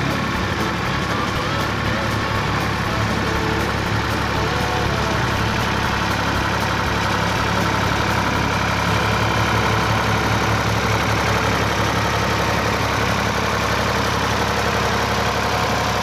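Engine of an about-1967 Ford 2000 tractor running steadily as it drives past mowing hay with a sickle bar mower, a little louder as it comes closest near the middle.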